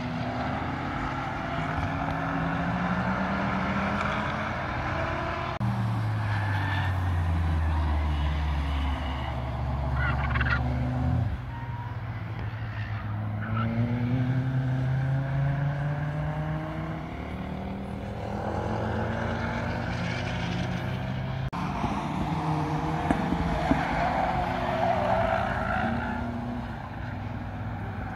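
Several cars' engines revving hard around a race circuit, the note climbing through each gear and dropping at each shift, with more than one car heard at once.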